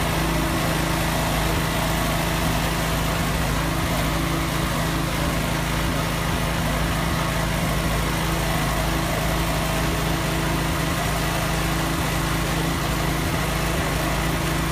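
Small engine running steadily at one speed, the power unit of firefighters' hydraulic rescue tools; an even, unchanging hum.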